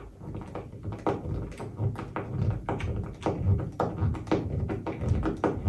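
A run of sharp, irregular knocks, two or three a second: wall anchors being tapped into the wall with a hammer.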